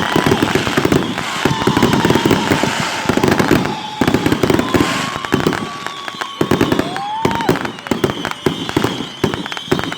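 Fireworks going off in a rapid, continuous crackle of many small bangs, with a thin whistling tone running through that bends in pitch now and then.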